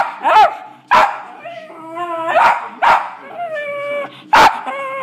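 A West Highland White Terrier barking: about six sharp, loud barks in five seconds, with drawn-out high whining calls in the gaps between them.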